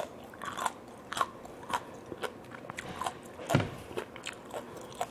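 Close-miked chewing of a mouthful of grilled tiger prawn: soft, irregular wet clicks and crunches about twice a second, with one louder, deeper mouth sound about three and a half seconds in.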